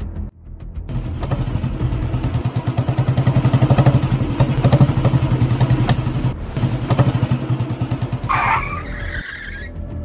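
Motor vehicle engine running and revving, a rapid low pulsing that builds to a peak about four seconds in and then eases. About eight seconds in comes a brief, higher-pitched screech.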